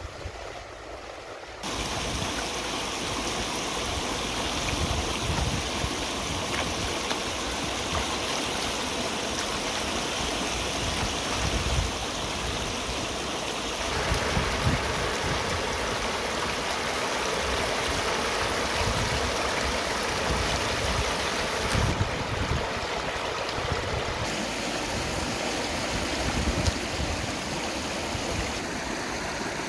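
Shallow river water rushing and splashing over rocks in small rapids, a steady noise that jumps louder about two seconds in.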